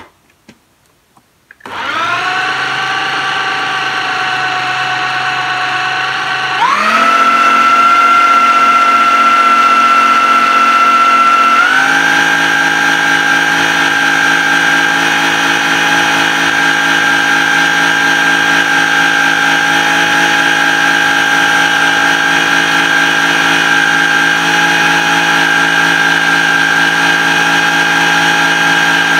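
Countertop blender motor starting up and running steadily while blending a thick paste. Its pitch and loudness jump up about five seconds after it starts, then step up slightly again a few seconds later, as the speed is raised.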